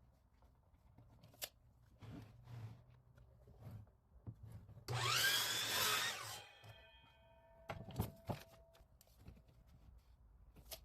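Power saw making a short cut through a wooden board about five seconds in, its pitch rising then falling, followed by a ringing tone that fades over the next couple of seconds. Scattered knocks of boards being handled come before and after, with two sharp knocks about eight seconds in.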